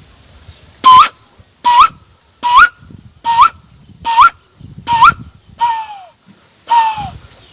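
A man imitating the call of a white-breasted waterhen by mouth: eight short, loud whistled notes about one a second, each hooking sharply upward at its end, with two notes near the end sliding downward instead.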